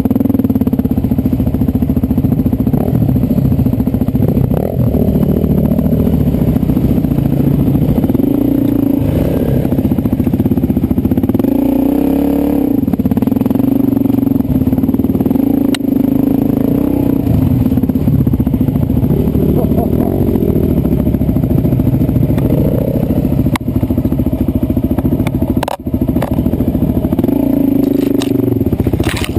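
Dirt bike engine running at changing throttle, its pitch rising and falling as the rider works up a rough trail, heard close up from a helmet camera, with a few sharp knocks and clatter from the bike over rocks.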